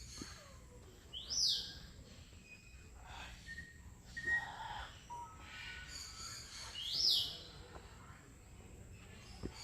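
Parrots calling in an aviary: two loud, shrill squawks, one about a second and a half in and one about seven seconds in, with softer chirps and calls from other birds between them.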